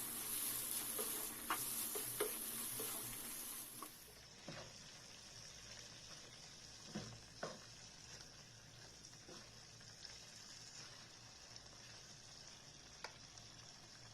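Masala frying in a pan, with a loud sizzle and the clicks of a spoon stirring against the pan. About four seconds in, the sound cuts to a much quieter, steady sizzle with only a few spoon knocks.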